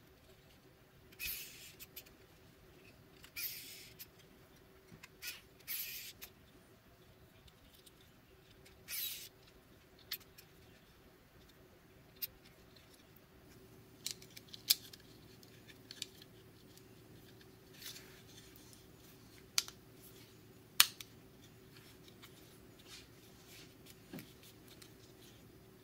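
Pen-style cordless electric screwdriver whirring briefly as it drives small screws into a GPS dog collar's plastic housing, five short bursts in the first ten seconds. These are followed by scattered sharp clicks and taps as the plastic housing is handled and pressed together.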